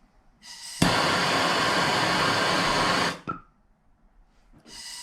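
Handheld gas torch fired in bursts to heat titanium bolts. A soft hiss comes on, then the flame roars up suddenly and runs at an even level for a couple of seconds before cutting off. A second burst starts near the end.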